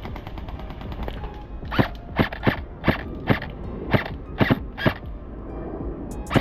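Airsoft Glock 17 gas blowback pistol firing about nine quick, sharp shots, starting nearly two seconds in, each a crisp mechanical clack of the slide cycling.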